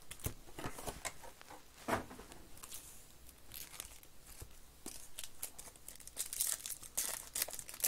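Foil baseball card-pack wrappers crinkling and rustling in short irregular bouts as packs are handled, with the foil of one pack being torn open near the end.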